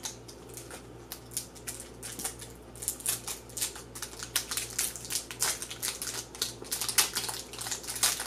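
Small plastic candy wrappers being picked open and unwrapped by hand, a dense irregular run of crinkling and crackling, over a low steady hum.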